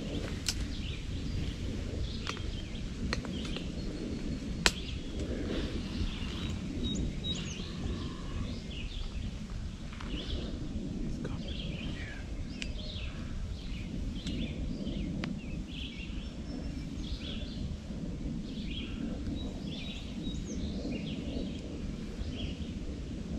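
Songbirds chirping in the woods, short calls scattered all through, over a steady low rumble. A few sharp clicks come in the first five seconds, one of them loud.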